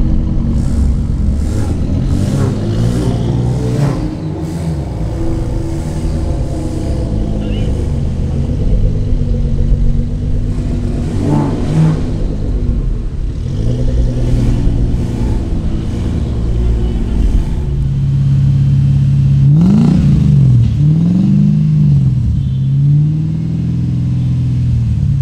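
Nissan GT-R R35's twin-turbo V6 running at low revs as the car pulls slowly away in traffic, its note rising and falling. In the later part, another car's engine idles steadily and is blipped several times, the revs sweeping up and dropping back.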